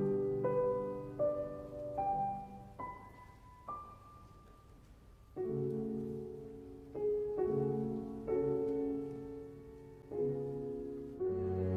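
Slow, gentle background piano music: single notes climbing one by one, then fuller chords from about halfway through.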